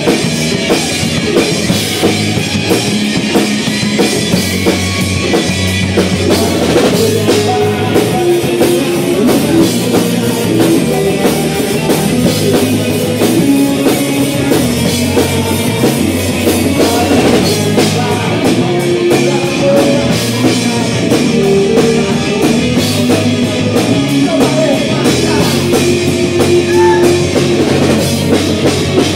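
Live rock band playing loudly and without a break: electric guitars, bass guitar and a drum kit.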